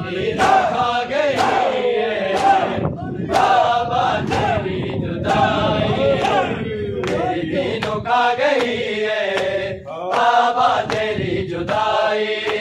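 A group of men chanting a Punjabi noha mourning lament together, punctuated by sharp, rhythmic hand strikes on their chests (matam).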